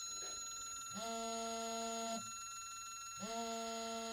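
Snap-on digital torque wrench sounding its electronic alert as it is pulled to its set torque on the tester. There are two steady, low buzzing tones: the first lasts about a second, and the second starts about three seconds in and is still sounding at the end. The alert signals that the target torque has been reached.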